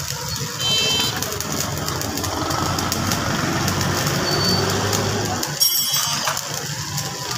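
Stick (arc) welding: the electrode's arc crackling and sizzling steadily as a weld is run, over a low steady hum that stops about two-thirds of the way through.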